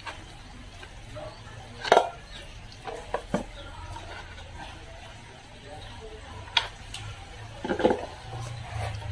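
Scattered sharp clinks and knocks as a small hand tool and hands work on a 15-inch speaker driver during a recone, over a low steady hum.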